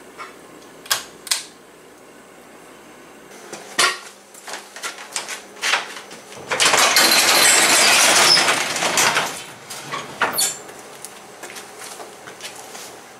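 Sectional garage door lifted open by hand, its metal panels and rollers rattling loudly for about three seconds, after a few sharp clicks and knocks.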